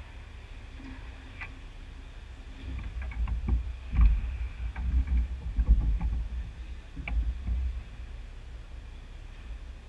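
Ice hockey rink sounds: low rumbling thuds for several seconds in the middle, with a few sharp clacks, about one second in, four seconds in and seven seconds in.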